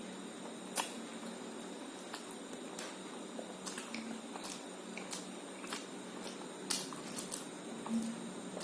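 Close-up eating sounds: wet squishing and chewing of a mouthful of rice and egg curry, with scattered sharp clicks and smacks, the loudest about a second in and again near the end.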